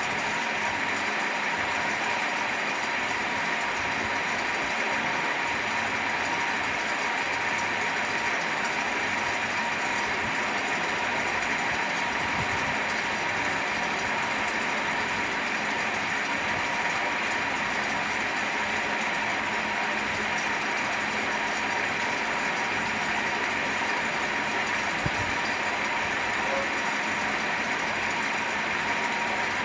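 Electric fan running steadily: an even, unbroken whoosh with a faint constant motor hum underneath. One soft low knock sounds late on.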